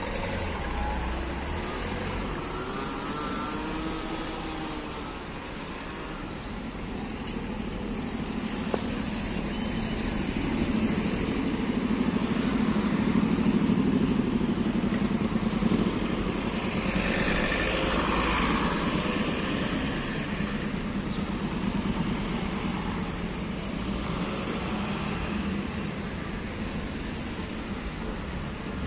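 Road traffic on a city street: cars and a van running past, swelling to its loudest in the middle as vehicles go by close, then easing off.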